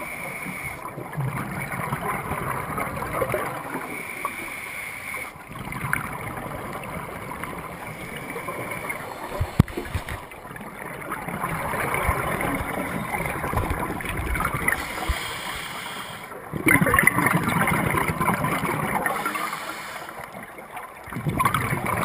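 Underwater sound of scuba divers' exhaled regulator bubbles: bubbling and gurgling over a steady hiss, swelling in louder bursts every few seconds. One sharp knock comes midway.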